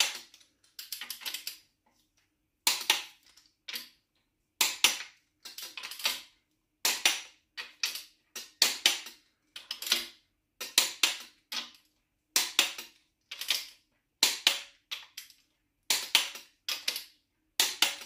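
Ratcheting torque wrench clicking in short bursts, about one stroke a second, as the crankshaft main bearing cap bolts on a VW 16v engine block are pulled down to 60 Nm.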